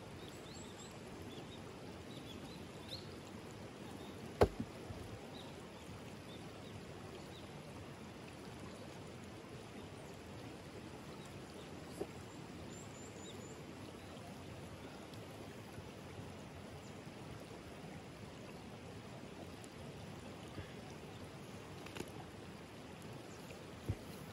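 Shallow river flowing steadily over stones, with a few faint high bird chirps. A single sharp knock comes about four seconds in, and a few lighter clicks follow later.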